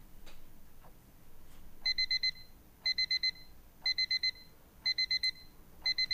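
Bedside alarm clock going off with an electronic beep: quick bursts of four beeps, one burst about every second, starting about two seconds in.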